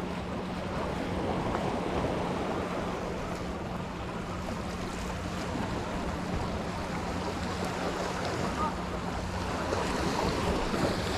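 Ocean waves washing on the shore in a steady rush, with wind on the microphone.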